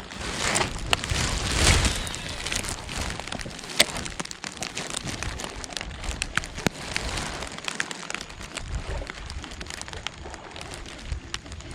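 Heavy rain falling, with many sharp clicks of drops striking surfaces close to the microphone over a steady hiss.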